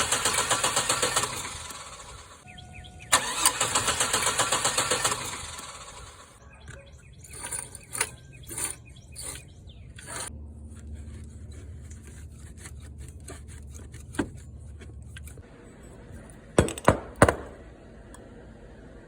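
Chevy 4.3 Vortec V6 engine turning over in two bursts of fast, even pulses, each about two seconds long and then fading. Scattered clicks and a low hum follow, with a few sharp knocks near the end.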